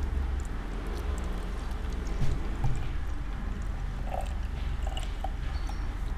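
Coolant trickling in a thin stream from a jug into a small plastic bottle. A couple of soft knocks come a little over two seconds in.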